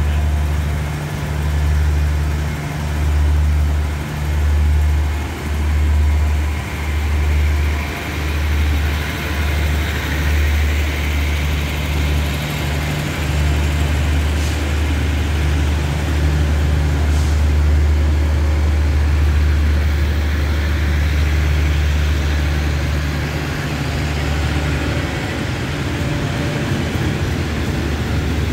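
Deep hum of a passenger train's diesel engine, throbbing about once a second at first, then running steady, and easing off near the end as the train starts to pull out of the station.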